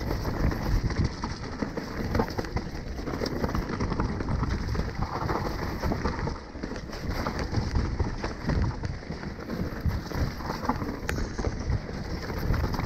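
Mountain bike ridden fast down a rough dirt trail covered in wet leaves: a continuous clatter and rattle of the bike over bumps, with tyres crunching through the leaves and a low rumble underneath.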